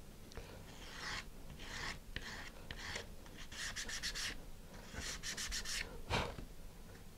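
A small wooden part is sanded by hand on a sandpaper-faced sanding bar, in repeated rubbing strokes with quicker runs of short strokes about three and a half and five seconds in. It is being thinned because it is a little too tight in its slot. A single thump about six seconds in.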